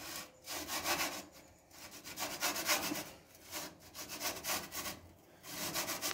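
Slotted metal pizza peel scraping across a pizza stone in a run of short strokes, as a pizza is worked off the peel and pushed further back onto the stone.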